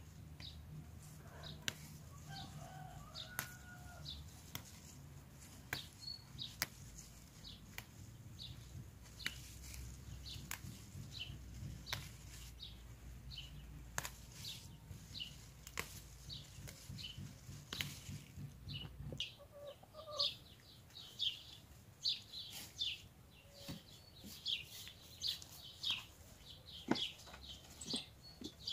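Sharp snaps of mint stems being picked by hand, with small birds chirping and a low rumble underneath. About two-thirds of the way in the rumble stops, and hens cluck among denser chirping.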